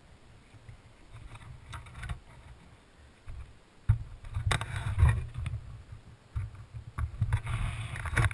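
Wind rumbling on the microphone in uneven gusts, stronger in the second half, with scattered knocks and rustling.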